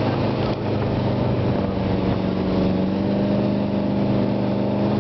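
Motorboat engine running steadily at speed while towing, with water rushing in the churning wake.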